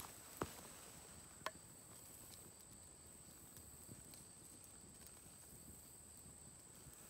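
Near silence, broken by two sharp pops within the first second and a half and a faint tick about four seconds in, from the wood fire around the stone slab. A faint steady high-pitched whine sits underneath.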